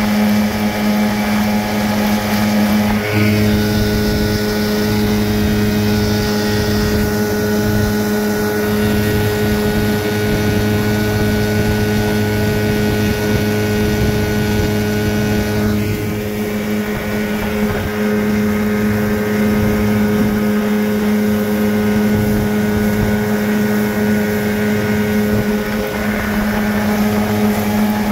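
Outboard motor running steadily as the boat moves under way, a constant drone that dips briefly about halfway through.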